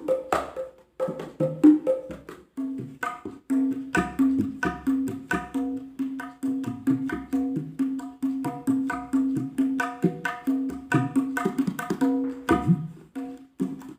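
Mini kempul carved from jackfruit heartwood struck in a quick rhythmic pattern, several strokes a second, each ringing at a low pitch with a resonant, bouncy tone.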